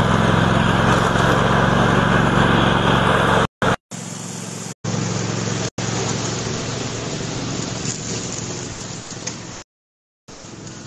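Cub Cadet riding lawn mower's engine running steadily as it drives across grass. It is loudest over the first three seconds or so, and the sound cuts out briefly a few times.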